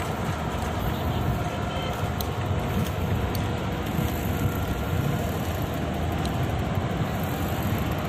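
Steady rush of wind and road noise from a bicycle rolling along a wet street.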